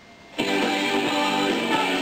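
Guitar music from an AM radio station playing through the Panasonic SG-J500 boombox's speakers; the sound drops out briefly at the start, then the music comes back steadily.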